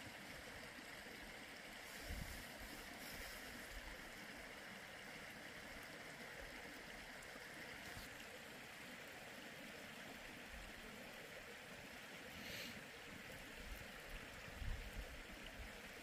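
Shallow creek flowing over a gravel bed: a faint, steady babble of water, with a few soft low bumps near the end.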